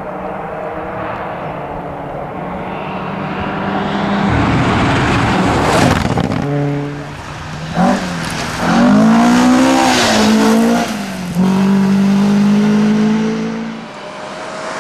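Rally car engines, Ford Escorts on a gravel stage, held at high revs with lifts and gear changes as the cars slide past. About two thirds of the way through, one car passes close and its engine pitch rises and falls.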